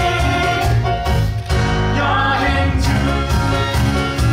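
Upbeat musical-theatre song played live, with a singer's voice over band backing and a steady bass beat.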